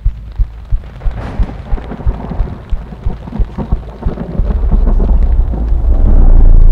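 Thunder rumbling over falling rain: the rumble builds from about four seconds in to a loud, deep roll near the end, under a regular low pulsing beat.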